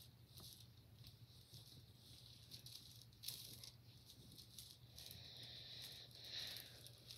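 Near silence with faint rustling and light taps of hands patting a skincare product onto the face, over a steady low hum.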